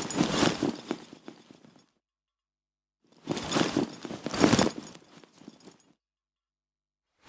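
Clothing being put on: two bursts of fabric rustling, each about two seconds long, the first at the start and the second about three seconds in, with a pause between.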